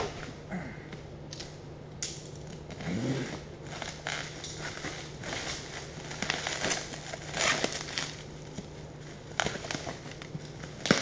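Clear plastic wrapping on a cardboard package crinkling and crackling in irregular bursts as it is handled and pulled off the box.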